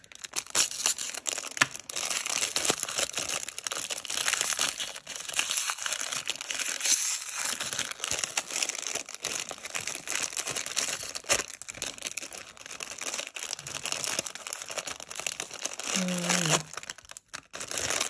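Crinkly packaging rustling and crackling continuously as a masking tape set is handled and unwrapped, with many small sharp crackles.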